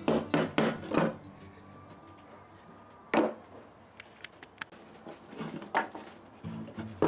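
Sharp wooden-sounding knocks: four in quick succession at the start, a single louder one about three seconds in, and a few lighter ones near the end. Background music fades out after the first second and comes back near the end.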